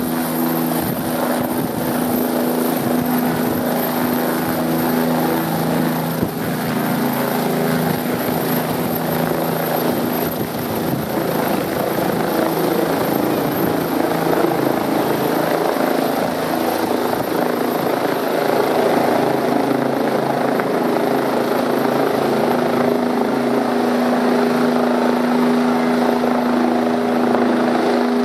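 Bell 427 twin-turbine helicopter lifting off and climbing overhead: loud, steady rotor noise and turbine whine, with a low hum that fades in the middle and comes back near the end.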